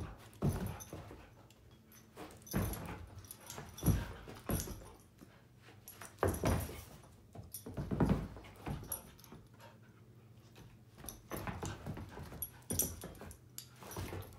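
Two dogs play-fighting, making a string of short, sudden vocal sounds with quieter gaps between them and a lull about ten seconds in.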